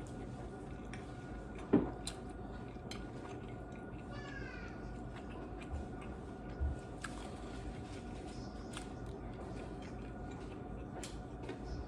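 A single sharp knock about two seconds in and scattered small clicks while eating, over a steady low hum. A short falling animal call, like a cat's meow, comes near the middle.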